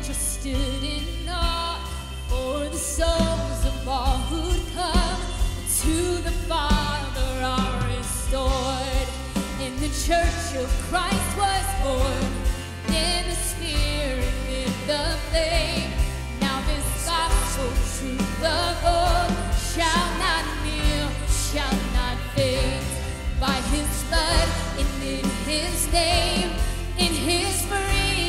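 Worship song: a singer over a full band, with a steady beat and a strong bass line.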